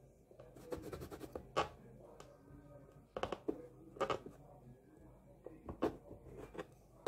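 A serrated knife cutting through rolled fondant icing, its tip scratching and tapping on the surface beneath in short, irregular strokes.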